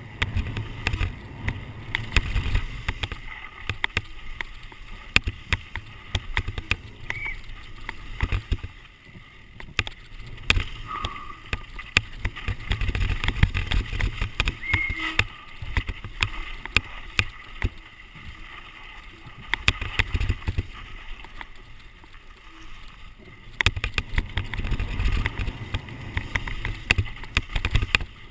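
Downhill mountain bike descending rough dirt and rock trail: low wind rumble on the microphone that swells and fades with speed, over constant sharp rattling clicks and knocks from the bike jolting over bumps.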